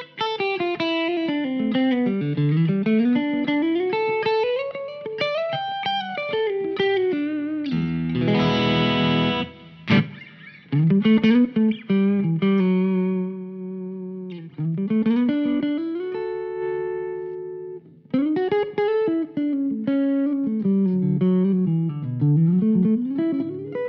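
Fano Omnis MG6 Mustang-style electric guitar played through an amp: flowing single-note lines that rise and fall, a strummed chord about eight seconds in, held notes and a ringing chord in the middle, then more runs near the end.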